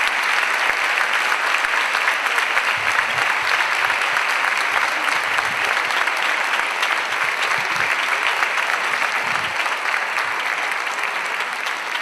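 Large audience applauding steadily with dense clapping that eases slightly near the end.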